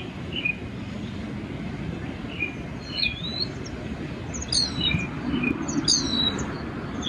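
Birds chirping: short high chirps and quick falling notes, coming more often in the second half, over a steady low rumble.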